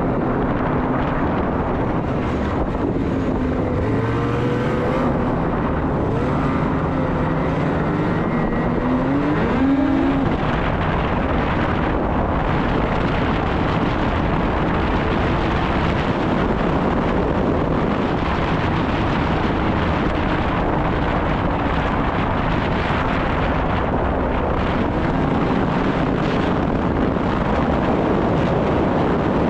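Snowmobile engine running under a dense, steady rush of noise, its pitch rising and falling several times in the first ten seconds, with a quick climb near the ten-second mark. There is wind noise on the microphone.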